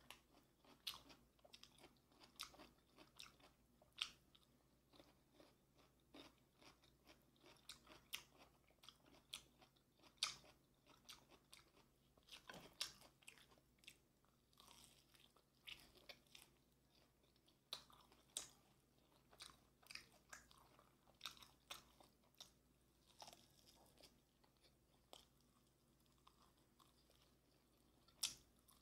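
Close-up eating sounds of sauce-coated Korean fried chicken (yangnyeom chicken): short, sharp crunches from biting the crisp coating and chewing, scattered irregularly.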